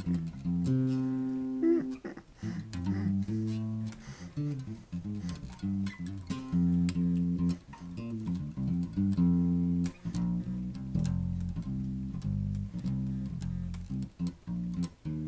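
Electric bass guitar, a Fender Jazz Bass, played solo: a line of plucked notes, some held for about a second, turning to quicker, shorter notes about ten seconds in, with light clicks of the strings between notes.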